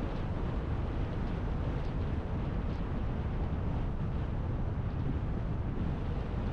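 Steady road and wind noise from a car driving along, a low rumble with wind buffeting the microphone.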